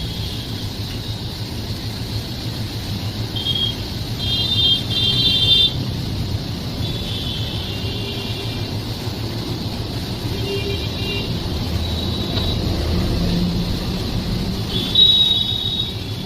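A train running with a steady low rumble, with short high-pitched whistling tones coming and going five or six times over it.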